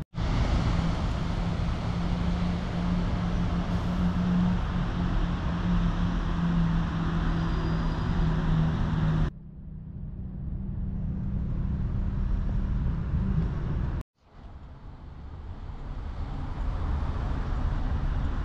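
Outdoor city ambience of steady traffic-like rumble, with a low, even engine-like hum for about the first nine seconds. The sound breaks off abruptly twice, about nine and fourteen seconds in, and picks up again as steady background rumble.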